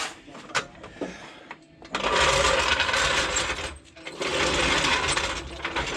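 A 3.5-ton hydraulic service jack being set in place and worked under the truck: a few clicks, then two spells of dense metallic rattling about two seconds each.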